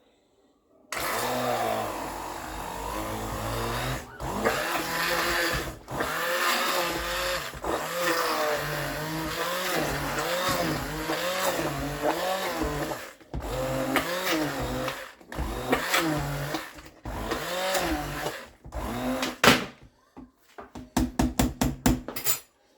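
Electric blender running as it purées cooked pumpkin and potato for soup, its motor pitch wavering up and down under the load. It cuts out briefly several times and ends in a run of short bursts.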